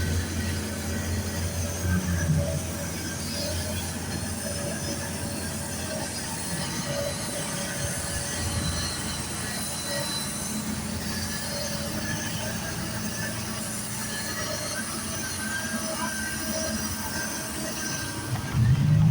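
Heavy construction machinery running steadily: a low rumble under thin, steady high-pitched metallic squealing, with a louder low surge near the end.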